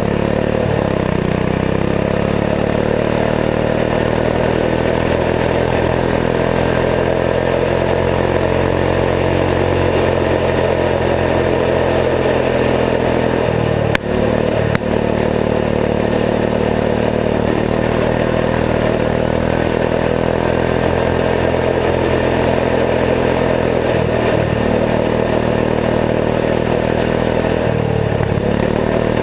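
Turbocharged 14 hp single-cylinder Kohler engine of a Gilson garden tractor running steadily under way. About halfway through there is a single sharp click as the engine note briefly dips, and the pitch sags and recovers a couple more times later on.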